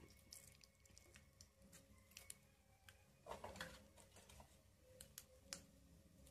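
Mustard seeds popping and spluttering in hot oil in a small tempering pan: faint, scattered pops and crackles, busier about three seconds in.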